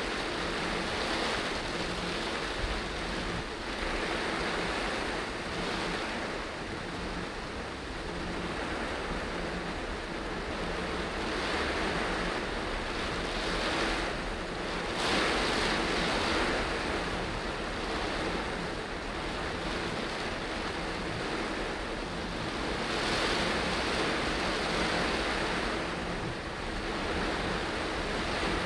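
Heavy rain on a moving car and tyres hissing through water on the wet road, heard from inside the cabin: a steady rushing noise that swells and eases every few seconds.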